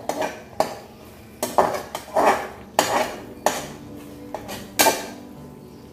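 A metal spoon scraping and clinking against the sides and bottom of an aluminium pressure cooker as a thick masala paste is stirred on low heat, in irregular strokes about once a second.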